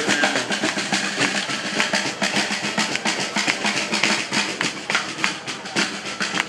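Marching street band drumming: snare and bass drums with other hand percussion playing a fast, steady beat.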